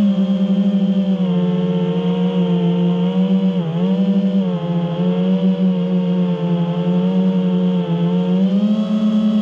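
Drone motors and propellers whining at a steady high pitch that wavers a little, dips briefly about four seconds in and rises slightly near the end.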